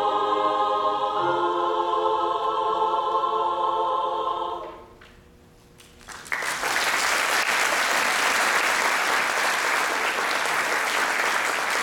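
Mixed choir holding a chord of several sustained pitches that is cut off about four and a half seconds in, the song's close. After a short silence, audience applause breaks out and continues.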